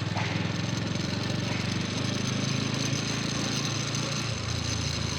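Bajaj Pulsar NS 125's single-cylinder engine running steadily while riding, a rapid low pulsing, with wind and road noise over it.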